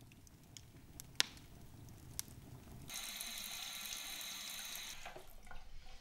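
A wood fire in a fireplace, with two sharp pops, then about three seconds in a kitchen tap running water into a sink onto cups, stopping about two seconds later, followed by a few light knocks.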